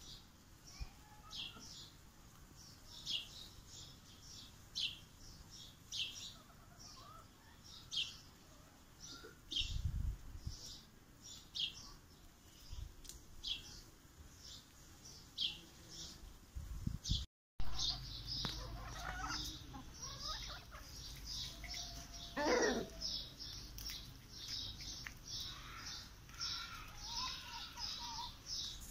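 Small birds chirping in short, high, repeated notes, about once or twice a second, growing denser in the second half. About two-thirds through, a chicken in the coop gives one brief, louder call.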